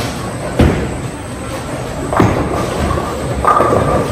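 Bowling alley: three sharp crashes of bowling balls and pins on the lanes, roughly a second and a half apart, each with a short echo in the hall, over background chatter.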